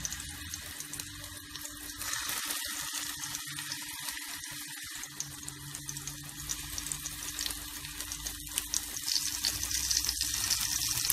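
Hot vegetable oil sizzling and crackling in a frying pan as raw meatballs fry, with more meatballs being set into the pan; the sizzle grows a little louder near the end.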